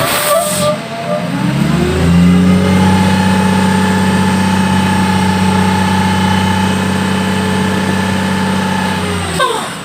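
Dump truck's diesel engine revving up over about two seconds, holding steady at high revs, then dropping away quickly near the end.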